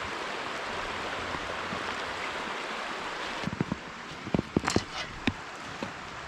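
Steady rushing of a woodland brook. From about halfway, irregular sharp crunches and snaps join it.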